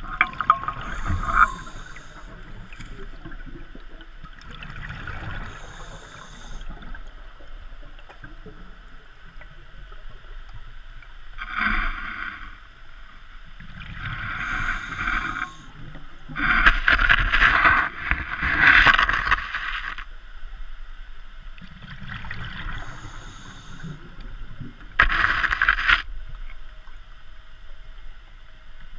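Scuba diver breathing through a regulator underwater: surges of bubbling and hiss at irregular intervals of a few seconds, the loudest a little past the middle.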